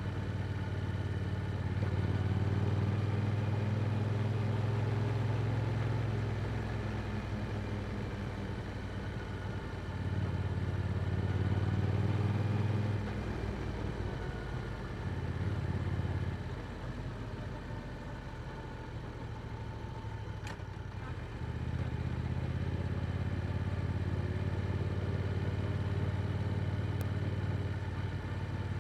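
Yamaha R7 motorcycle with an Akrapovic exhaust under way at a steady pace. The engine note swells and eases several times as the throttle is opened and rolled off, and is lowest for a few seconds past the middle before pulling again.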